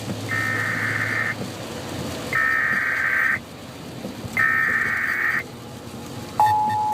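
Emergency Alert System header over FM radio: three one-second bursts of screechy digital data tones about a second apart, the coded header that announces the alert. Near the end the steady two-tone attention signal begins.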